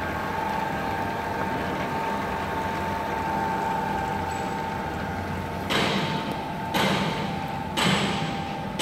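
Tissue paper slitter-rewinder running with a steady hum and a steady whine. Near the end, three loud rushing noise bursts of about a second each break in, one after another.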